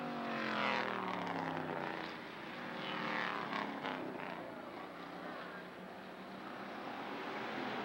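Hobby stock race cars passing close by, each engine note falling in pitch as it goes past: one about a second in and another at about three seconds, with other cars running further off for the rest of the time.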